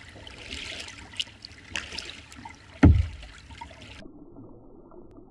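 Water trickling and splashing right at a kayak-mounted camera, with a few sharp ticks and one heavy thump near the middle. After about four seconds the sound turns duller and quieter, a faint lapping of water.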